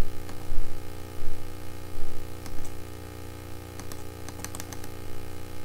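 Steady electrical mains hum with a few scattered sharp clicks and a quick run of them about four and a half seconds in, typical of clicks at a computer mouse and keyboard.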